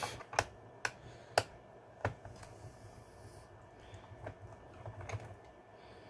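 Small screwdriver clicking and tapping as screws are worked out of an Acer Aspire V3-574 laptop's plastic bottom case: a handful of sharp clicks in the first half, then a few fainter ticks.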